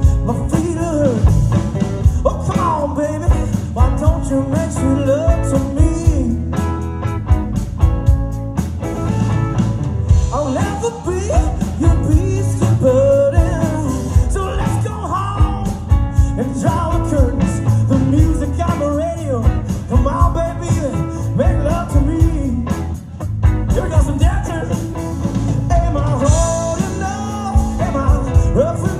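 A rock band playing live, with singing over guitar and a steady drum beat.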